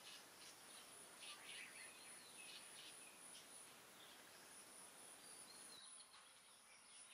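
Faint rural ambience: a steady high-pitched insect drone with scattered short bird chirps over a light hiss. The hiss drops away about six seconds in.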